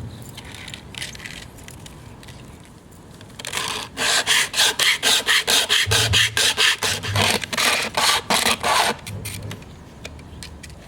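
Rapid, rhythmic rasping strokes on wood, about four a second, starting about three and a half seconds in and stopping near the nine-second mark, with a few fainter scrapes before and after.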